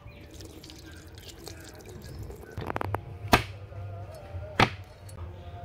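Steel cleaver chopping through a large red snapper on a plastic cutting board: a few sharp chops in the second half, the loudest two about a second apart. Water from a hose trickles and drips under the first part.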